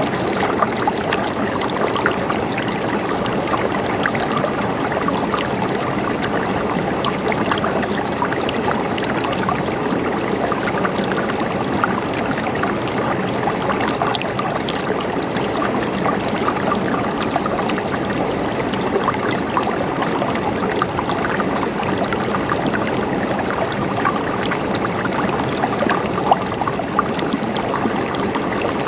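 Steady running water, a continuous babbling flow with many small splashes.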